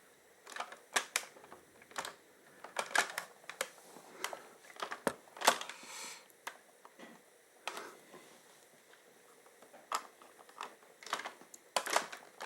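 Scattered sharp plastic clicks and taps at irregular intervals from a toy playset being handled and its buttons pressed, with the launch sequence not triggering.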